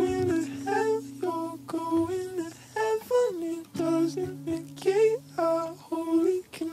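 Music interlude: a wordless, humming-like melody of short notes, several a second, over long held low notes that change pitch a couple of times.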